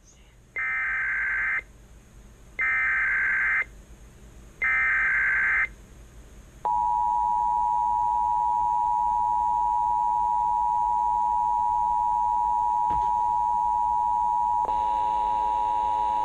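Emergency Alert System tones from a Sage EAS ENDEC: three screechy one-second bursts of SAME header data, a second apart, then the steady two-tone EAS attention signal. About a second and a half before the end, a buzzing tone with many overtones joins the attention signal.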